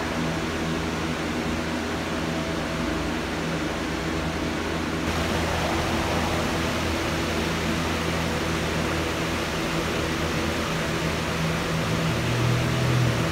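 A steady hiss with a low hum underneath. Its tone shifts slightly about five seconds in, and the hum swells briefly near the end.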